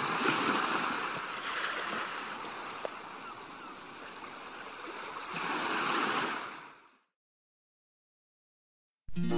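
Sea waves breaking and washing on a shore. The surf swells about a second in and again near six seconds, then fades out at about seven seconds into silence. Music with brass starts just before the end.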